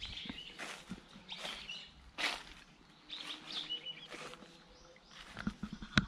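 Wild birds calling: short high chirps and brief harsher calls, scattered a second or so apart. A few soft low thumps come near the end.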